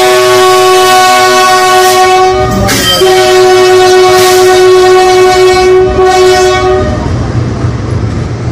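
Indian Railways diesel freight locomotive sounding its horn, a loud multi-note chord held in one long blast that dips in pitch and breaks briefly about three seconds in, then resumes and stops about seven seconds in. After it, a low rumble of the passing train.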